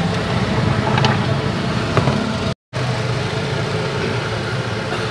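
Steady low mechanical rumble, like street traffic or an idling engine, with a couple of faint light clicks about one and two seconds in and a brief gap just past halfway.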